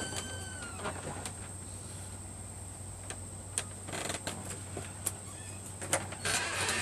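Handling a cardboard box packed with foam packing peanuts: scattered small clicks and rustles, with a denser rustle near the end and a short falling squeak right at the start.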